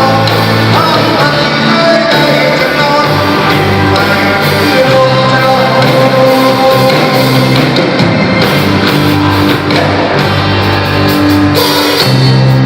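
Live rock band playing continuously, with guitar and bass and a sung vocal line.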